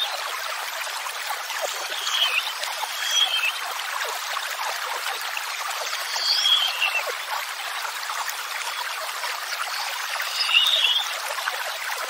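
Steady rush of running water, with a songbird giving a short chirping call four times over it; the calls are the loudest moments.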